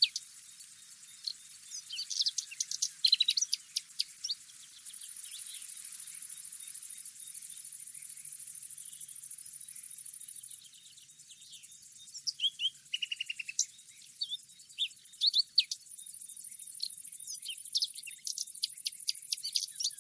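Several songbirds chirping and singing in short, quick phrases, one after another with no pause. A steady high-pitched drone sits behind them, stronger in two long stretches.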